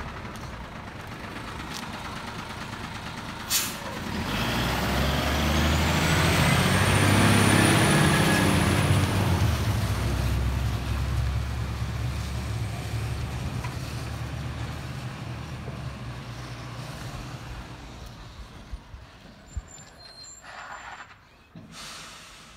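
Rubbish truck pulling away: a short, sharp air-brake hiss about three and a half seconds in, then the diesel engine revs up with a high whistle rising over it, and the sound fades gradually as the truck drives off. A few faint knocks near the end.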